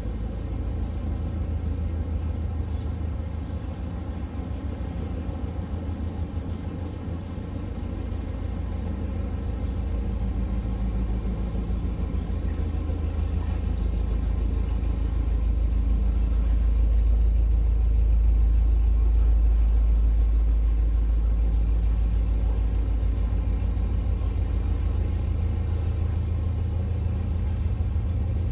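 Narrowboat's diesel engine running steadily as the boat moves along, a low rumble that grows louder around the middle while the boat passes under a brick bridge arch.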